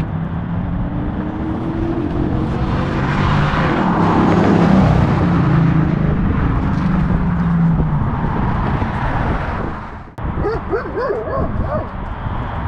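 GMC Sierra's 5.3 V8 with a Carven TR muffler driving past, rising in pitch and growing louder to a peak about four to five seconds in, then easing off. Near the end, after a brief drop-out, a dog barks a few times.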